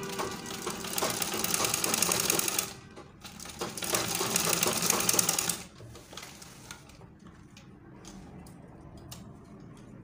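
Sewing machine stitching an invisible zipper into a skirt seam in two runs, each a rapid, even rattle of needle strokes: the first lasts about two and a half seconds, the second starts about a second later and stops about five and a half seconds in. After that only a few faint clicks of the fabric being handled.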